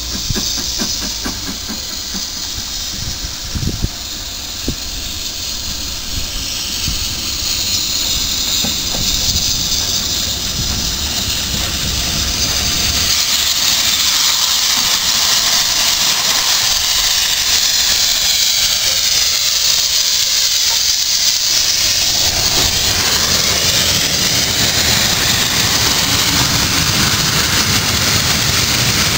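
BR Britannia-class Pacific steam locomotive 70013 Oliver Cromwell approaching and passing with its train: a steady hiss of steam that grows louder from about halfway, then the coaches running past.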